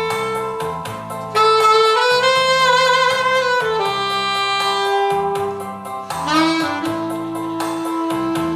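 Solo saxophone playing a slow melody in long held notes, one with a wide vibrato, and sliding up into a long low note about three-quarters of the way through, over a steady rhythmic accompaniment.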